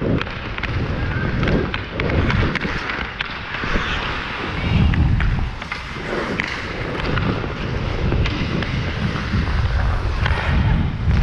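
Hockey skate blades carving and scraping the ice in repeated strides, with sharp clicks of the stick on the puck and wind buffeting the helmet-mounted camera's microphone.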